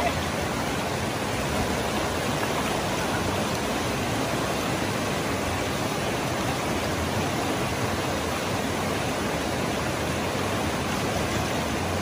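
River rapids rushing over and around boulders: a steady, even wash of white water.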